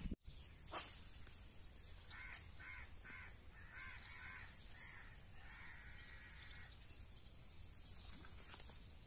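A crow cawing: a run of about six short caws, then one longer drawn-out call. A steady high-pitched whine sits underneath.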